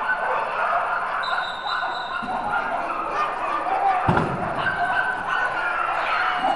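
Excited dogs barking at flyball racing over the chatter and calls of a crowd of people, with a single thump about four seconds in.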